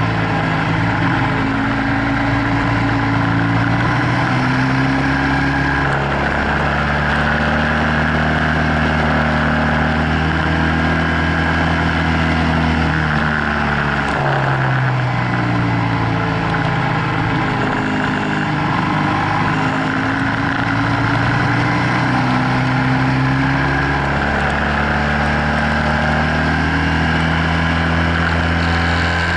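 BMW F800GS parallel-twin engine running under way, its pitch rising and falling as the bike is ridden through the bends, with a sharp drop in pitch about halfway through. A steady rush of wind runs underneath.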